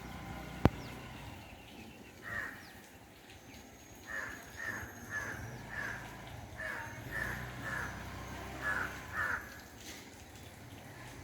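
A crow cawing: one caw about two seconds in, then a run of about nine caws over the next five seconds. A single sharp click, the loudest sound here, comes just under a second in.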